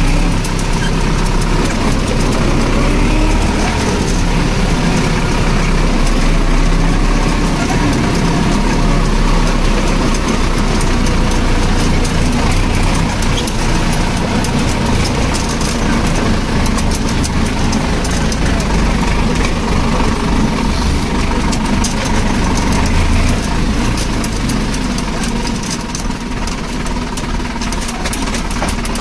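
Sonalika 750 DI tractor's diesel engine running steadily, with a loud low-pitched engine sound that eases off slightly near the end.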